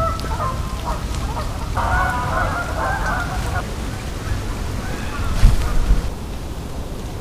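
Geese honking, several calls overlapping in the first few seconds, over a low wind rumble on the microphone. A single loud bump about five and a half seconds in.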